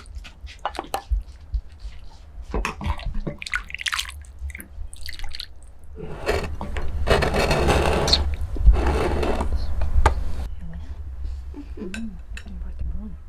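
Sauce dripping and splashing as stuffed peppers are ladled from a wok into a ceramic bowl with a wooden spoon, with small knocks and clicks. Around the middle comes a louder rushing noise lasting about four seconds.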